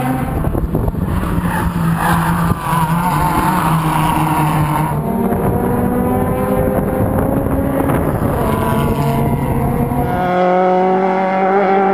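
Suzuki Swift race cars' engines running, heard from trackside with heavy wind rumble on the microphone. About ten seconds in, the sound cuts to a cleaner engine note rising in pitch as a car accelerates.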